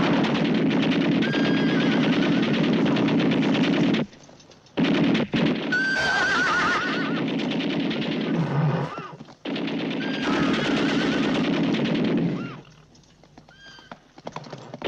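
Long bursts of rapid machine-gun fire mixed with horses neighing and whinnying. The fire breaks off briefly about four seconds in and again near the end, when only a few whinnies are left.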